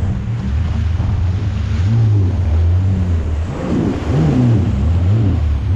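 Yamaha VX Cruiser personal watercraft's engine running under load while it tows a disabled boat on a rope through chop, its pitch rising and falling continually, over rushing water.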